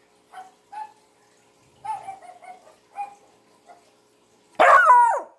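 Hound puppy giving a few faint short sounds, then near the end one loud bark that slides down in pitch into a short howl.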